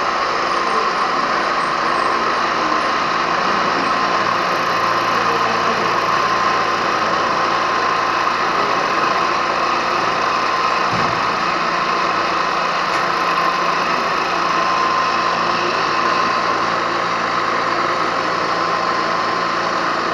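Milling machine running steadily as it cuts, an even mechanical noise with a prominent mid-pitched whine.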